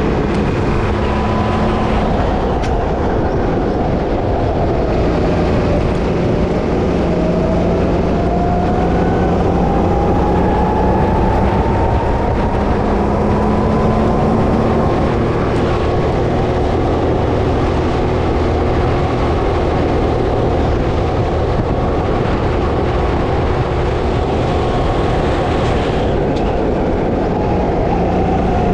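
Go-kart engine running hard at speed, its pitch climbing steadily for several seconds as the kart accelerates, then dropping back lower, over a dense steady rumble.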